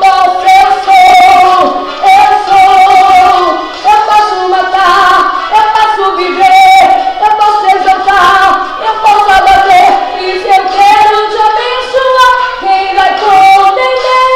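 Female voice singing a Portuguese-language gospel chorus over a backing track. Near the end the voice stops and a steady held instrumental note takes over.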